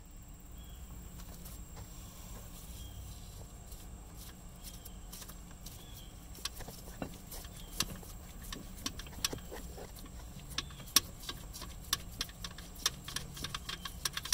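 Small metallic clicks and ticks, few at first and then coming every second or so from about halfway in, as the alternator's top mounting bolt is worked loose by gloved hand, over a low steady hum.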